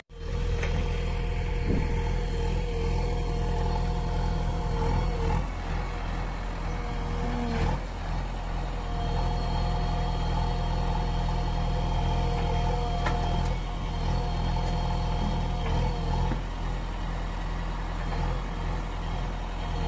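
Diesel engines of a JCB 3DX backhoe loader and a Swaraj 735 tractor idling with a steady low hum.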